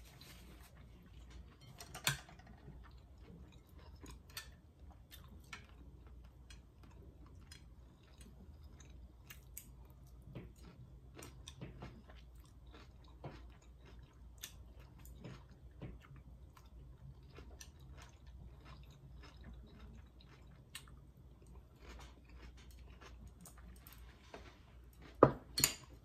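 A person chewing food with her mouth near the microphone: many small clicks, soft and irregular, with a sharper click about two seconds in. Two loud sharp clicks come near the end.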